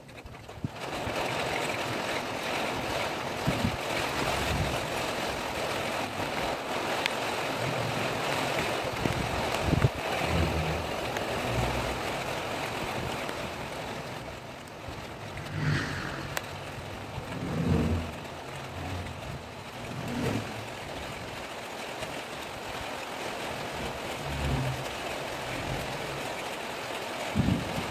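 Wind gusting: a steady rushing hiss with irregular low rumbles as gusts buffet the microphone.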